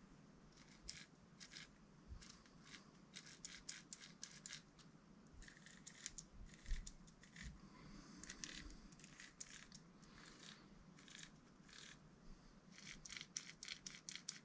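Faint, irregular clicking and light rattling of the small metal and plastic parts of an RC car's centre differential being handled and fitted together by hand during reassembly, some clicks coming in quick clusters.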